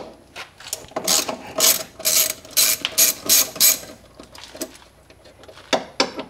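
Hand socket ratchet on an extension clicking in quick strokes as the car's door latch bolts are backed out: a long run of clicks, a pause, then a shorter run near the end.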